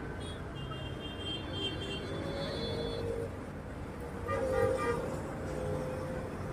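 City road traffic with a steady low rumble and vehicle horns. A thin high tone sounds for the first few seconds, and a short lower honk comes about four and a half seconds in.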